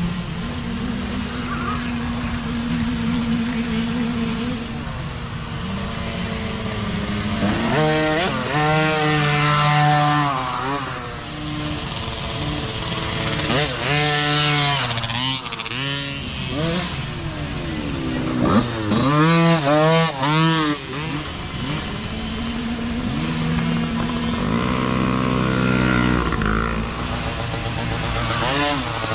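Small micro-class youth dirt bike engines. They start as a steady drone, then rev up and down several times as the bikes accelerate and back off along the trail, loudest a little past the middle.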